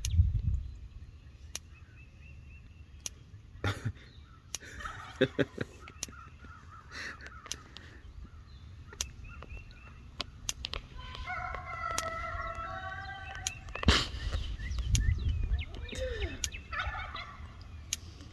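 Turkeys gobbling, the longest call about eleven seconds in, with scattered sharp clicks throughout.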